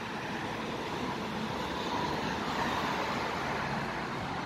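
Steady road traffic noise, swelling a little about halfway through as a vehicle passes.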